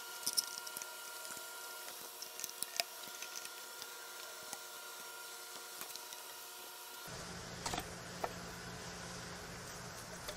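Faint clicks and taps of an LT1 V8's timing cover being pried and worked loose from the engine block by hand, over a steady faint hum. A low rumble comes in about seven seconds in.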